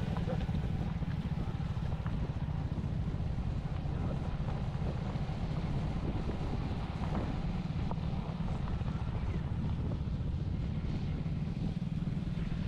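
Steady low rumble of wind buffeting the microphone on a moving motorcycle, with the vehicle's running noise underneath.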